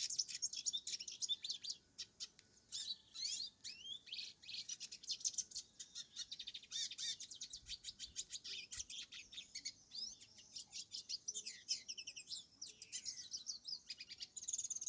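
Hooded siskin singing a long, rapid, twittering song of fast chirps and trills, with a short pause about two seconds in.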